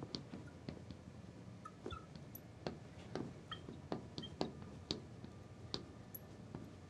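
Marker pen writing on a glass lightboard: faint, irregular taps and short squeaks as the letters are drawn.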